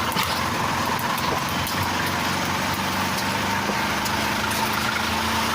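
Steady engine and road noise of a moving motor vehicle, even throughout, with a low hum underneath.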